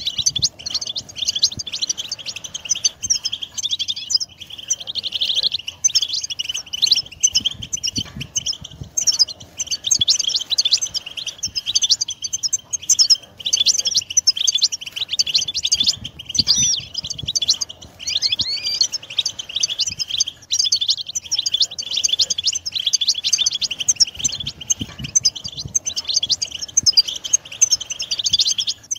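European goldfinches singing in chorus: quick, liquid twittering, chirps and trills from several birds overlapping without a break.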